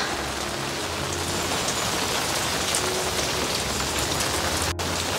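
Steady rain falling, an even patter of drops on the ground and plants, cutting out for an instant near the end.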